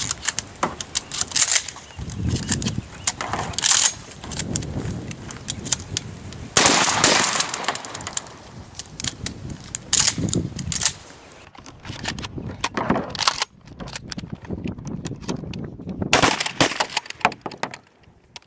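Two pump-action 12-gauge shotguns being hastily loaded, racked and fired: a busy run of clicks and clacks from shells pushed into the tubes and the pump actions worked, broken by several loud shots.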